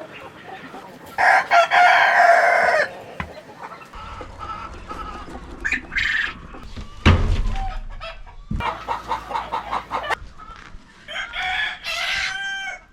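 Chickens clucking, with a rooster crowing twice: once about a second in and again near the end. A dull thump comes about seven seconds in.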